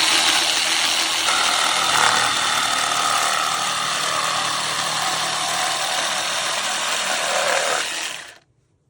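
Artisan Tool ATJS01B 18 V cordless jigsaw running: a loud, dense motor-and-blade buzz that starts abruptly, holds steady with a slowly falling tone, and stops about eight seconds in.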